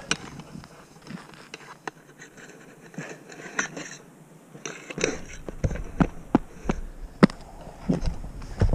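Scattered scrapes and knocks of a person moving about in snow after a fall from an electric mountainboard. About five seconds in, a low rumble joins them and the knocks come more often, as the rider gets up.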